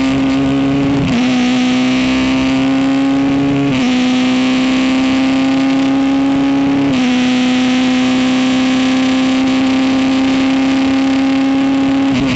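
Honda engine of a Ligier race car under full throttle, its note climbing steadily and dropping briefly at each upshift: about a second in, near four seconds and near seven seconds. After the last shift it holds a long, nearly steady high note, with a constant rushing hiss over it.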